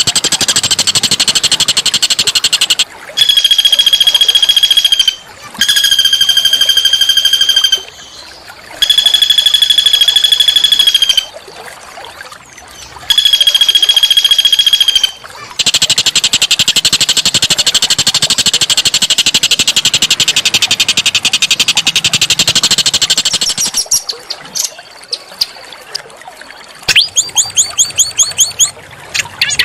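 A small songbird singing loudly in a harsh, buzzy song. A rapid trill gives way to four long, level whistled notes of about two seconds each, with short gaps between them, then another long rapid trill and a quick series of sharp chipping notes near the end.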